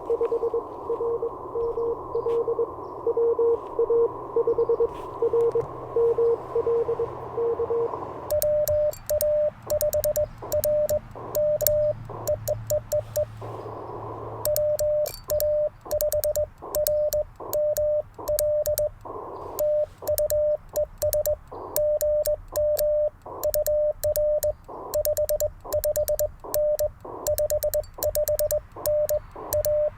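Morse code from an Icom IC-705. For about the first eight seconds a received CW signal beeps over band hiss. Then the hiss cuts out and the radio's slightly higher-pitched sidetone takes over as the operator sends on an N3ZN ZN-SS sideswiper (cootie) key, whose contacts click with each dit and dah.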